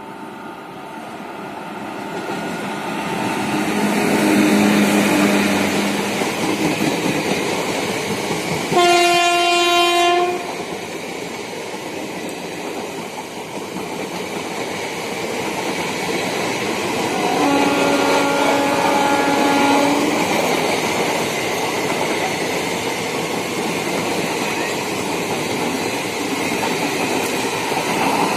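WAP-1 electric locomotive and its passenger express passing at speed, the noise building as it comes in. A loud horn sounds for about a second and a half, then the coaches rush by with wheels clattering over the rail joints. A second, lower and fainter horn note sounds about eight seconds later.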